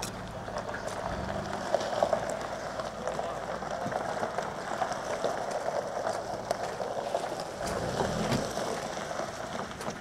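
Lexus RX 350 SUV engine running low as the SUV pulls slowly away over gravel, its hum strongest at the start and again about eight seconds in, under a steady gritty crunching.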